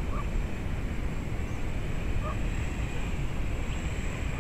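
Steady low rumble of wind on the microphone. Over it, the distant faint whine of a quadcopter's brushless motors and 6-inch three-blade props, rising and falling in pitch as it flies.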